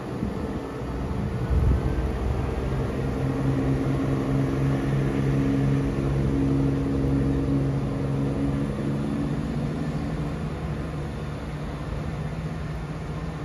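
Class 170 Turbostar diesel multiple unit pulling away from a platform, its diesel engines running under power with a steady low hum and a higher note that rises over several seconds, easing off as the train draws away. A low thump about a second and a half in.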